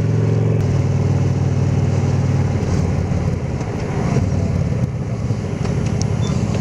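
Honda Shadow Aero's V-twin engine running as the motorcycle rides along, over road and wind noise. Its steady note shifts about half a second in and turns rougher and noisier after about two and a half seconds.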